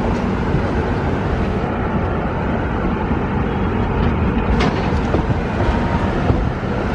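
Express train running: a steady rush and rumble of rail noise, with a sharp click about four and a half seconds in.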